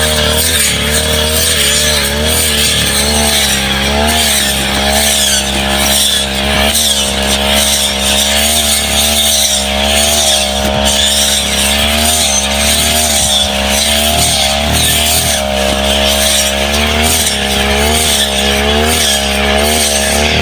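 Two-stroke brush cutter engine running at high speed, its pitch wavering up and down repeatedly as the blade meets brush and saplings.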